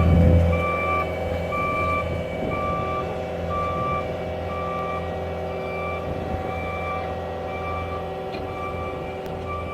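Cat 272D skid steer's diesel engine running, easing down about half a second in, with its reversing alarm beeping about once a second as the machine backs up.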